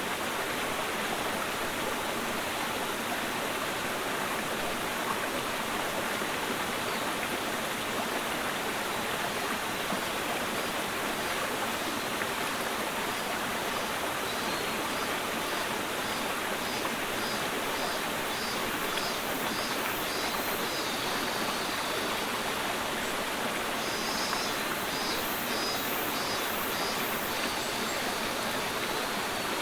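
Mountain stream flowing: a steady, even rush of water. Faint, quickly repeated high chirps come in over it around the middle and again near the end.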